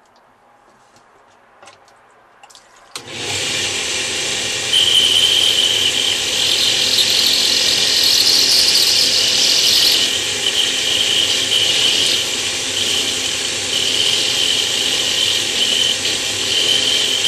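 A few light clicks, then about three seconds in a router fitted with a small diamond bit starts and runs, cutting a recess into a natural stone tile. A high squeal comes and goes over the running noise while the bit cuts.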